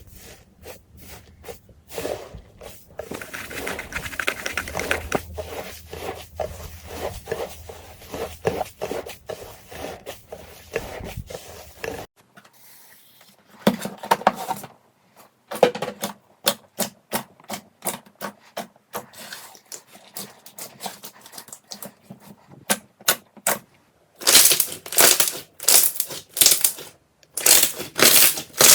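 Slime being squeezed and poked by hand: a dense run of sticky crackling and popping clicks, then after a short break, separate sharp crunching pops that grow loudest near the end.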